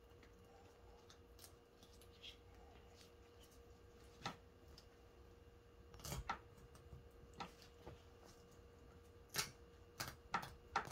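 Knife blade cutting through a sockeye salmon's rib bones: faint, scattered sharp clicks and crunches, a single one about four seconds in, then more often from about six seconds on.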